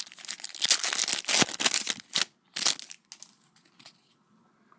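Foil trading-card pack wrapper crinkling and tearing as it is opened: a dense run of rapid crackles for about two seconds, one more short burst, then it stops about three seconds in.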